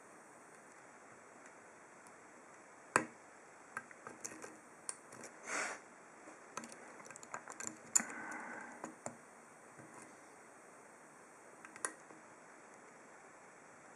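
Small sharp clicks and brief scrapes of a lock pick and tension tool working the pin stack of an ASSA Ruko 2 padlock's 7-pin core, scattered irregularly, with the loudest clicks about three and eight seconds in.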